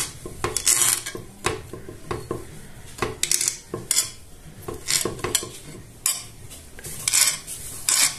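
Metal kitchen utensils clinking and scraping against dishes, in irregular strokes with short scraping hisses.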